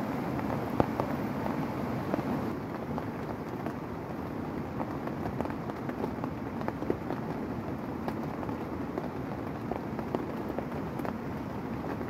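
Heavy rain falling on a tent: a steady rush with many sharp ticks of single drops striking the fabric.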